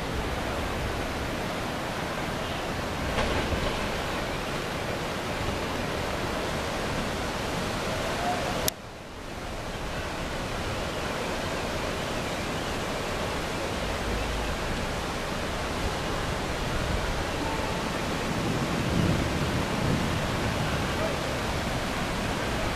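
Muddy floodwater rushing down a city street as a fast torrent, a steady loud rushing noise. About nine seconds in there is a sharp click and the noise drops briefly before the rushing returns.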